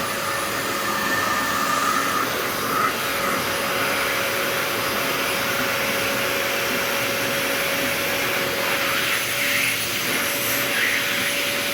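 Vacuum cleaner running steadily: a constant rushing noise with a steady whine at one pitch.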